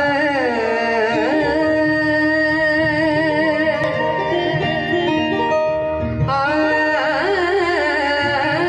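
Woman singing a Punjabi devotional bhajan into a microphone, amplified, over steady held instrumental notes. Her voice sweeps and bends in pitch near the start and again about six seconds in.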